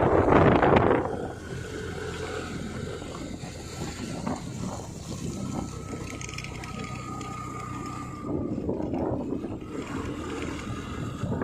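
Motorcycle running along the road, a steady engine and road noise, after background music fades out about a second in.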